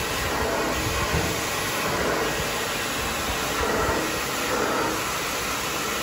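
Handheld hair dryer running steadily, blowing hot air onto a section of hair wound around a round brush.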